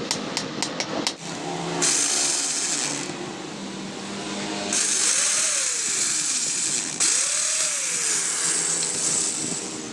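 Electric power tool working metal in long stretches with a strong hiss, its pitch sagging and recovering twice as it is pressed into the work. The first second holds a quick run of light taps, about four a second.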